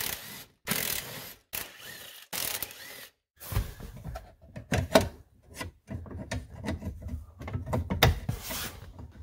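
Socket ratchet clicking in several short runs as 13 mm bolts holding a console bracket are loosened. This is followed by scattered clicks, knocks and light clunks of the loosened parts being handled.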